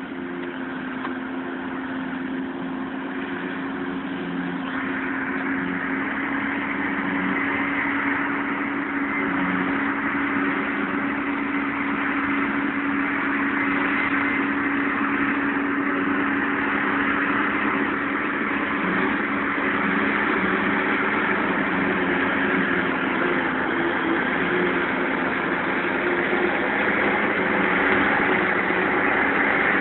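John Deere 9200 tractor pulling a Case IH FHX300 forage harvester chopping hay: a steady drone of engine and harvester with a few held tones, slowly growing louder as the rig comes closer.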